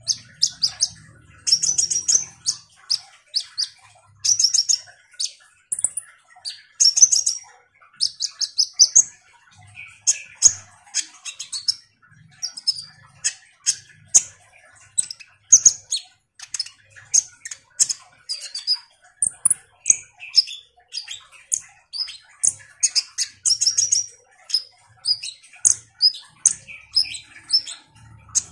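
Male kolibri ninja (Van Hasselt's sunbird) singing vigorously: a long, unbroken run of rapid high-pitched chirps and short trills.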